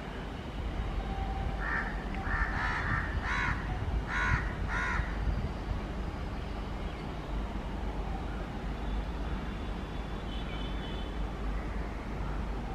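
Crows cawing, a run of about six harsh calls in the first five seconds, over a steady low rumble.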